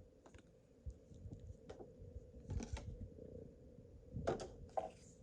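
Pokémon trading cards being handled and flipped through by hand: soft, irregular clicks and rustles of card stock, a little louder twice near the end.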